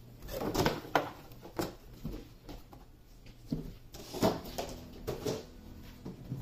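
Apples being set down one by one into a tissue-lined wooden crate: a string of irregular soft knocks with paper rustling.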